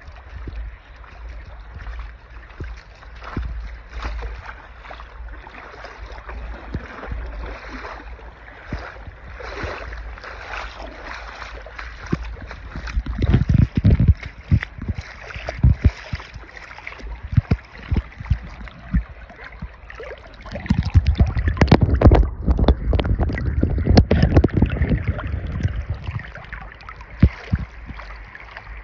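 Shallow spring water running and gurgling over gravel and rocks, with heavy low rumbling gusts on the microphone about halfway through and again a few seconds later.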